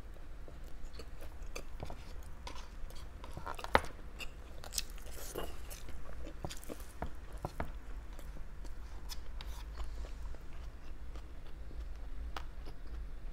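A person chewing and biting food close to the microphone: scattered wet mouth clicks and small crunches, with one sharper crunch about four seconds in.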